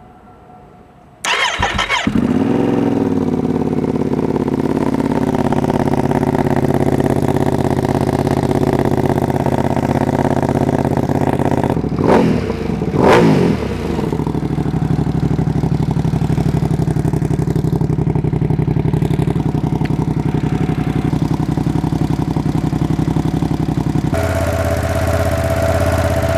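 Ducati Panigale V2S V-twin engine with an open Termignoni full exhaust system, no dB killer fitted, starting about a second in and settling into a steady idle, with two quick throttle blips about halfway through.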